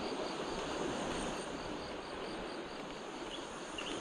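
Insects, crickets among them, trilling steadily over an even rustling hiss, with a few short high chirps in the second half.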